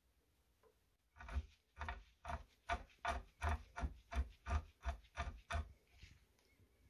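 About a dozen regular rubbing strokes, roughly two and a half a second, from a gloved hand working the ball screw under the aluminium table of a 6040 CNC router's Y axis.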